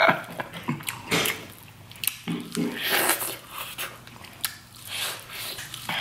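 A person biting into a Cajun-butter-coated corn on the cob and chewing it, in irregular crunchy bursts.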